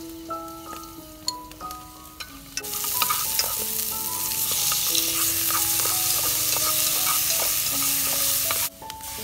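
Lemongrass, garlic and tomato wedges frying in hot oil in an aluminium pot and stirred with chopsticks: a loud sizzle starts about two and a half seconds in and cuts off abruptly near the end. Background music with a simple melody plays throughout.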